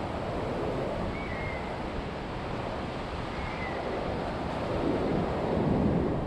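Ocean waves breaking and washing over a rocky shore, with wind buffeting the microphone. The surf swells louder near the end. Two faint short high calls sound over it, about a second in and again a couple of seconds later.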